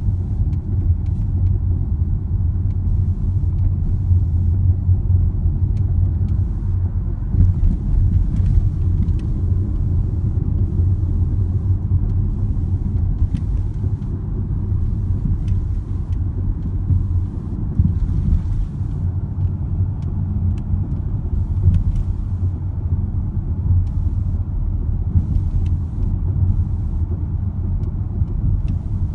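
Car engine running steadily with a low rumble and faint, irregular ticks, recorded to show a knocking noise.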